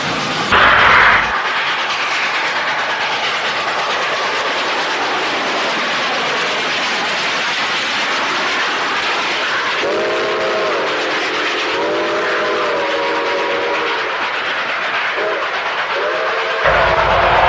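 A train running along the track with a steady rushing rumble. A brief louder burst comes about half a second in. About ten seconds in a locomotive sounds a multi-note horn chord, held for about four seconds with a short break, then sounds again briefly near the end, where the running noise grows louder and deeper.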